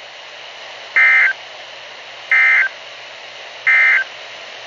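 Emergency Alert System end-of-message data signal: three short, identical bursts of two-tone digital data about 1.3 seconds apart, over a steady hiss of static. The bursts mark the end of the alert message.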